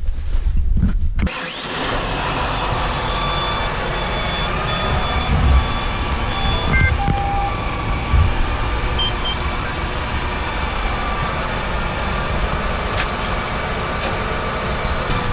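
Tractor engine running at a steady speed, preceded for about the first second by a low rumble of wind on the microphone.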